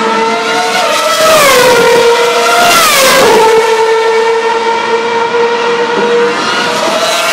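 2012 Formula 1 2.4-litre V8 race engines heard from trackside: a steady high engine note runs throughout. About one and a half seconds in and again about three seconds in, a car passes, and its pitch falls as it goes by.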